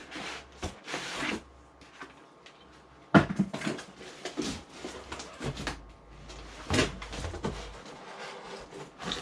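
Cardboard packaging being handled and pulled apart: irregular rustles, scrapes and knocks, with a sharp knock about three seconds in and another near seven seconds.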